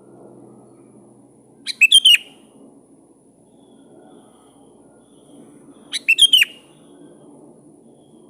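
Sooty-headed bulbul calling twice, about four seconds apart; each call is a short, quick phrase of a few clear notes.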